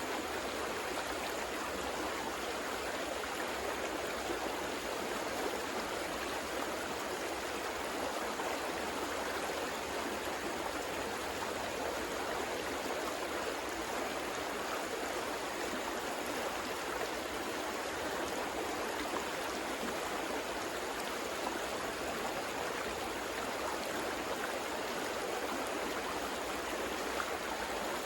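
River water flowing steadily over rocks, an even rushing and burbling with no breaks.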